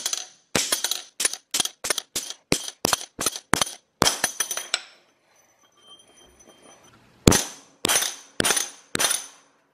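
Sharp metal blows on a bent steel wheelbarrow axle shaft as it is being straightened on a concrete floor. About a dozen quick strikes come at roughly three a second, then after a pause of about two seconds come five more.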